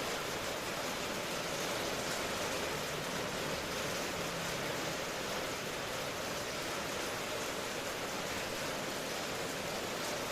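Steady rain falling, an even hiss without any thunder rumble.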